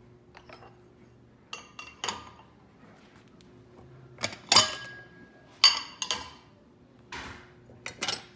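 Small dishes being set into a dishwasher's top rack: a run of sharp clinks and clatters in small clusters, a few ringing briefly.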